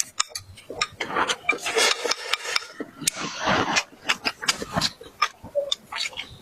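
A person chewing and crunching food close to the microphone: an irregular run of crackles, clicks and short rasping crunches.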